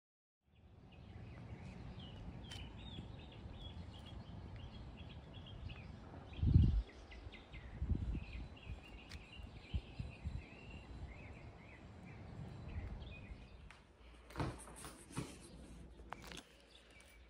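Outdoor ambience: small birds chirping over and over above a steady low rumble, with a few dull thumps, the loudest about six seconds in. Near the end the chirping fades and a few sharp clicks and scuffs take over.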